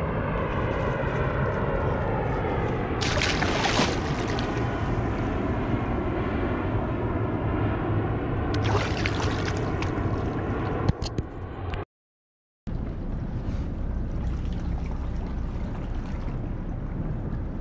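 Water sloshing and splashing beside a kayak as a striped bass is lowered in and released, with two louder bursts of splashing a few seconds apart, over a steady low rumble.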